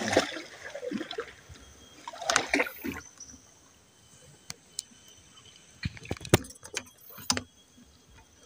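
Handling noise and knocks on a small wooden canoe: a cluster of rustling and knocking in the first three seconds, then a few isolated sharp knocks from about six to seven and a half seconds in.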